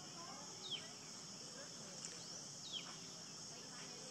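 Faint, steady high-pitched chorus of insects such as crickets, with a short falling chirp twice, about two seconds apart.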